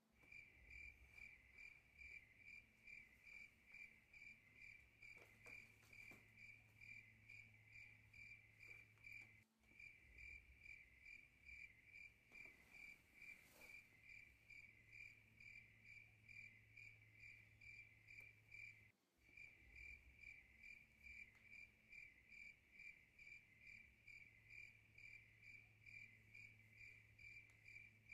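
Faint cricket chirping, a steady rapid pulsing trill over a low hum. The whole sound breaks off for a moment about every nine and a half seconds, as a looped recording does.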